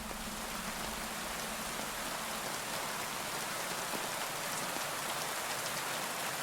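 Steady rain falling, a dense even hiss with fine patter of individual drops.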